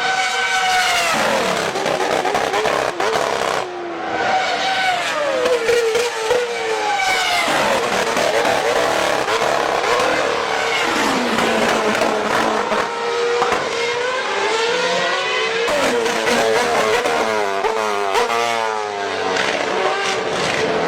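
High-revving racing engine, pitch climbing and falling again and again as it accelerates and shifts. A run of quick, stepped downshifts comes near the end.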